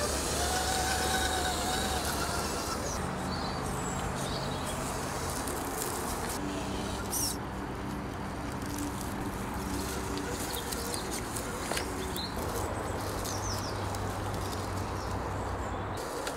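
Axial Honcho RC crawler's brushed 35-turn electric motor and gears humming at crawling speed, the pitch stepping up and down a few times with the throttle. Birds chirp in the background.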